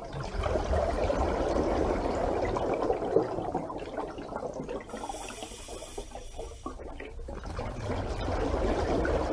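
Bubbling, pouring water, louder over the first few seconds, easing off in the middle and swelling again near the end.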